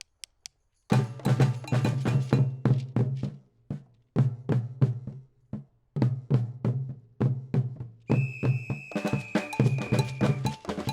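Brazilian-style batucada percussion group playing: a few sharp clicks, then about a second in the drums come in together with a deep bass drum under snare and wood-block strokes. The band drops out briefly twice, and a held whistle note sounds over the drumming for about two seconds near the end.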